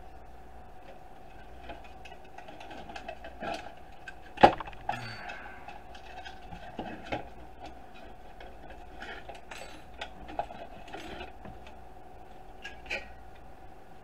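Thin metal charging-contact strips being worked out of a Roomba dock's plastic housing and set down on a wooden bench: scattered light clicks and clinks, with one sharp click about four and a half seconds in. A faint steady hum runs underneath.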